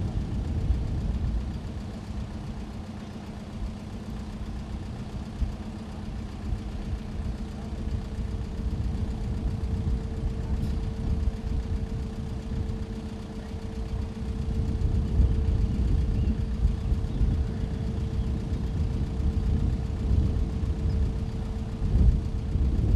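Steady mechanical hum from the Slauerhoffbrug tail bridge's lifting machinery as its deck swings down, over a low, uneven rumble. The hum steps up to a higher pitch about a quarter of the way in and fades near the end.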